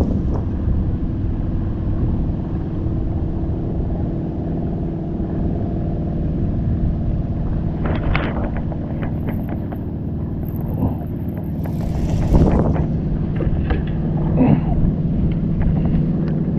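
Boat motor running steadily over the low rumble of water and wind, with a few brief knocks or splashes.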